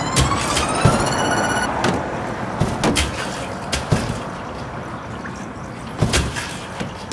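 A small motor whining and rising in pitch for about the first second and a half, then a steady rushing hiss with scattered knocks and clicks.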